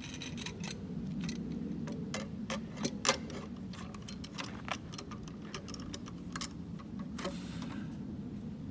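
Metal clicks and clinks of a steel C-clamp being set and tightened against a timber pole, in a quick irregular series. A steady low hum runs underneath.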